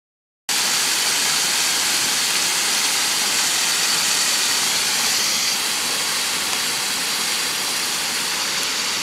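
Silence, then about half a second in a steady rush of flowing mountain-stream water starts abruptly and runs on evenly.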